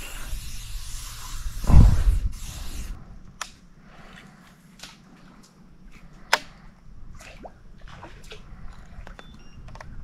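Aerosol insect repellent sprayed in one hiss lasting about three seconds, with a thump partway through. Then scattered light clicks.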